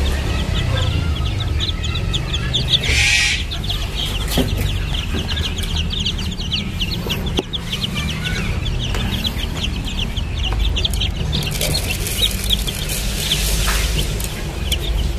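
Four-day-old chicks peeping continuously, many short high peeps overlapping in quick succession, over a low steady rumble. A brief noise breaks in about three seconds in.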